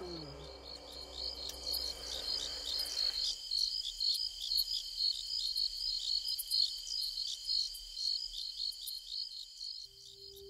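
Crickets chirping in a rapid, regular rhythm, several chirps a second over a steady high trill. A faint low hum drops away about three seconds in.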